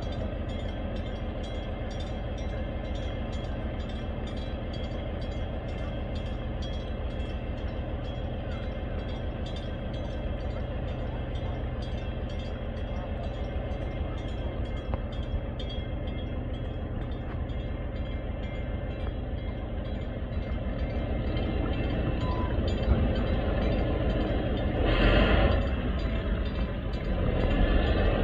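Tugboat's diesel engine running with a steady low throb. It grows louder over the last several seconds as the tug comes close, with a brief noisy rush about 25 seconds in.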